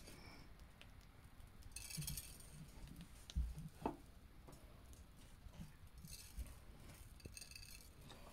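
Faint handling sounds of a piping bag of chocolate icing being squeezed, with a few brief rustles and a couple of soft knocks.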